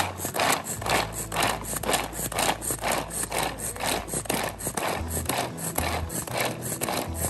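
Pull-cord manual food chopper being pulled over and over, about three pulls a second. Each pull spins its blades, which scrape and chop through carrot and onion in the plastic bowl.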